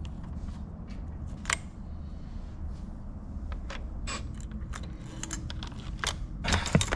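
Scattered small clicks and knocks of metal parts and hand tools being handled while a generator's carburetor is taken apart. The clicks get busier and louder near the end.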